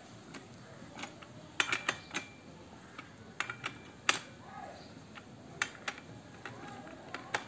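Sharp metal clicks and clinks of a T-handle box spanner and its tommy bar on the nut of a three-tooth brush cutter blade as the nut is tightened down. The clicks come irregularly, several close together about one and a half to two seconds in, more around three and a half to four seconds, and a few near six and seven seconds.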